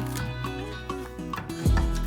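Background music: sustained melodic notes, with a deep kick drum hit coming in near the end.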